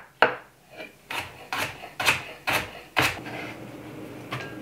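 Chef's knife chopping through a carrot onto a wooden cutting board, a sharp cut about every half second, stopping about three seconds in.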